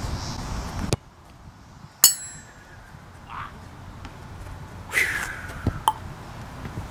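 Background music cuts off about a second in. Then a soccer ball is kicked once with a sharp smack and a brief high ring. A few seconds later comes a short cry from a voice that falls in pitch, followed by two light taps.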